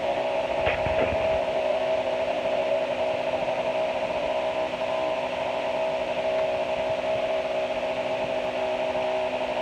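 An engine idling steadily, a constant-pitch drone over a hiss.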